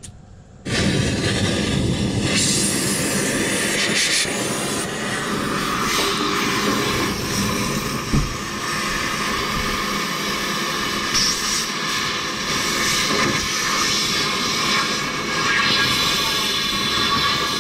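Cutting torch hissing steadily as it cuts through the steel frame of a truck.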